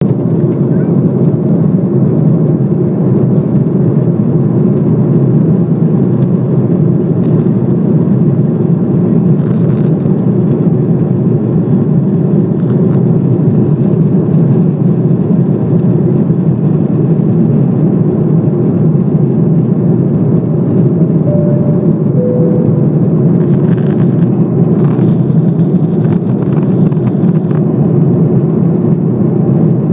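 Steady cabin noise of a jet airliner in cruise flight: the even drone of the engines and rushing air, heard from a window seat.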